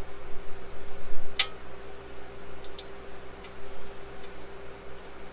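Small metallic clicks and ticks from parts of an airplane flap-handle assembly being handled and fitted, with one sharp click about a second and a half in, over a steady hum.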